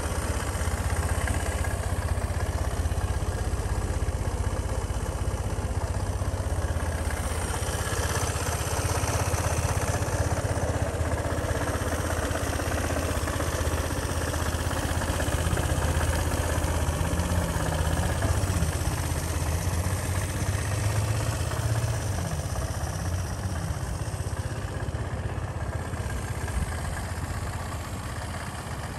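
Gilera Runner VXR200 scooter's single-cylinder four-stroke engine idling steadily, a little quieter near the end.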